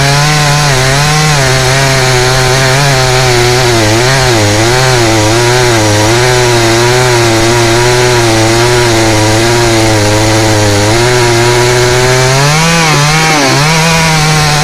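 Two-stroke chainsaw running at high speed while cutting through rain tree wood. The engine pitch wavers as the chain bites and bogs in the cut, and near the end it briefly rises and dips before settling again.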